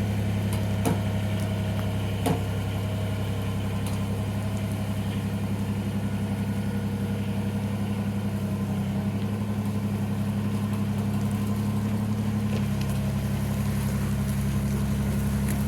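Kubota BX23S compact tractor's three-cylinder diesel engine running steadily at a low, even speed, with a couple of faint knocks in the first few seconds.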